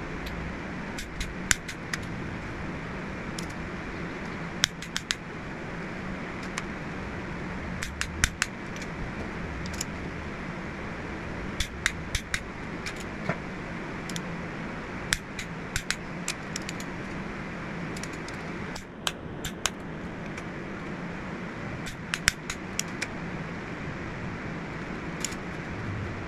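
A long click-type torque wrench tightening cylinder head bolts to 110 foot-pounds: sharp metallic clicks, some single and some in quick clusters, scattered all through, over a steady hum.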